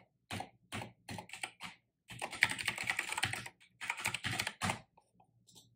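Typing on a computer keyboard: a few short runs of keystrokes, then a long fast run of about a second and a half, another run of about a second, and a last few faint keystrokes near the end.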